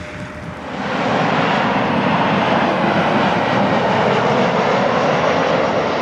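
Jet engines of a Boeing 737 airliner on final approach: a loud, steady rumble that rises sharply about a second in and holds.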